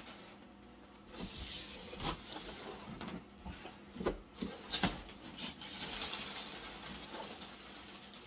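Rustling and handling noise as a box is picked up and brought over, with a few sharp light knocks along the way.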